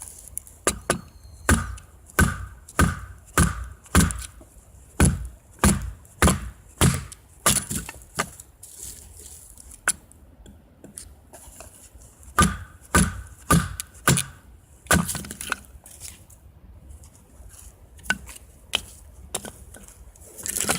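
Wood being chopped for a campfire: a steady run of about ten chopping strikes, a pause, then another run of about six, and a few lighter knocks near the end.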